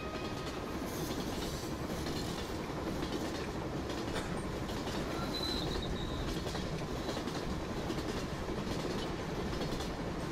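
Steady rumble of a passenger train carriage running on rails, heard from inside the carriage, with light clicks from the wheels.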